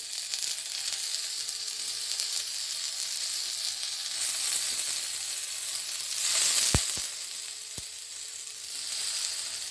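Masala-coated raw banana slices sizzling steadily on a hot dosa griddle (tawa), the hiss swelling about two-thirds of the way in. Three sharp clicks come near that point.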